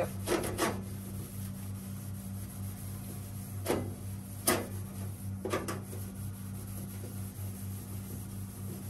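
About half a dozen light knocks and clicks from a gas stove top and its parts being handled during cleaning, spread out over a steady low hum.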